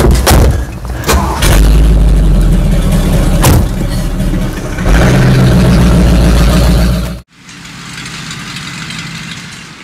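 Lifted 1970s Ford pickup truck's engine running loudly with a deep rumble, surging as the truck pulls away. About seven seconds in it cuts off suddenly to a much quieter engine sound as the truck drives along.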